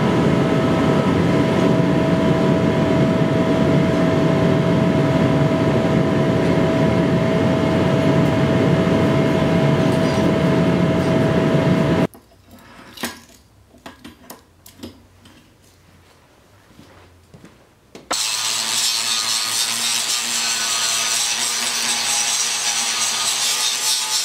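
A gas forge burner roars steadily with a constant tone. It cuts off abruptly to a quiet stretch of a few light metal taps as a steel block is handled with tongs on an anvil. About eighteen seconds in, a power grinder starts grinding steel with a loud, high-pitched hiss.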